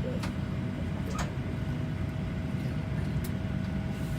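Steady cabin hum inside a parked Boeing 737-700 before pushback: the air-conditioning and ventilation running, with a low drone and a steady whine. A few faint clicks sound over it.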